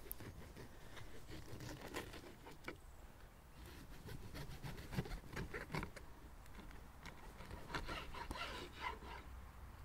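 Faint scraping and light knocks of a knife sawing through a hot, freshly baked fruitcake on a wooden board, busier near the end.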